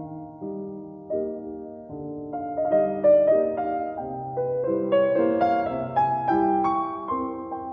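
Background piano music, slow and gentle, with soft chords and a melody.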